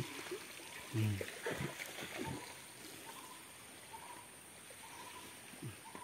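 Faint steady rush and trickle of a shallow stream running over rock, with a brief murmur of a voice at about a second in.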